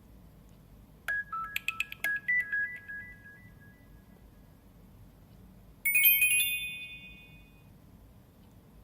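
Two short electronic alert tones from a Nokia Asha 300: a quick run of bright notes about a second in, then a chime about six seconds in that rings out and fades over a second or so.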